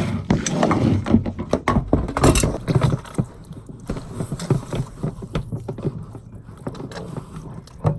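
Irregular knocks, clicks and rustles of hands working at a camper toilet's water line fitting, busier and louder for the first three seconds, then lighter and sparser.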